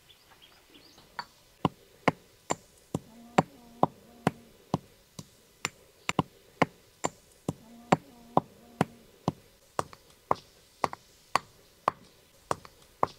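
Dry-roasted whole spices being pounded by hand into masala: steady sharp knocks, about two a second, starting about a second in.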